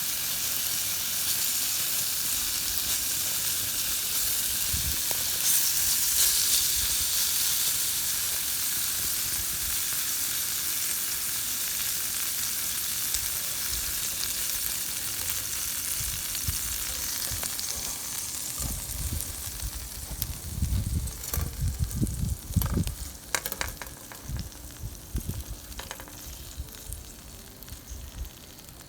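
Food sizzling in a pan over a campfire, the sizzle slowly dying down. In the second half come low bumps and a few sharp clicks.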